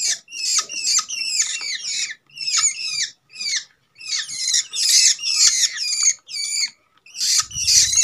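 Young long-tailed shrikes (cendet) calling in a cage: a rapid run of short, high chirps, about three a second, each note sliding down in pitch, with brief pauses near the middle and near the end.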